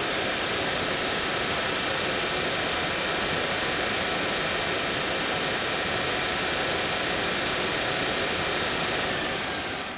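Daewoo Nexia heater blower motor spinning its squirrel-cage fan at full speed on the bench off a battery: a steady rush of air and motor noise while its newly fitted replacement brushes bed in. Near the end it winds down as the power is cut.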